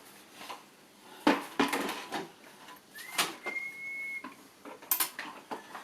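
Scattered knocks and clatter of toy shop parts being handled and fitted together. About three seconds in there is a thin, high steady tone lasting about a second.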